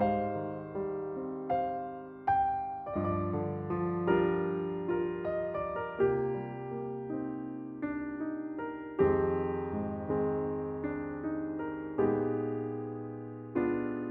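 Background piano music: a slow, gentle melody of struck notes with chords, each note ringing and fading.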